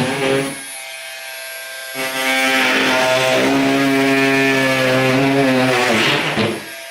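Bosch GOP 18V-28 brushless cordless oscillating multi-tool running with a steady buzzing hum, its blade cutting through material. The sound drops away for about a second shortly after the start, comes back at full strength, and winds down near the end.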